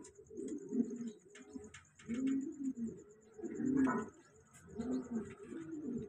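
Gubbara (Gobara) pigeons cooing: a series of low, rolling coos, about one every second.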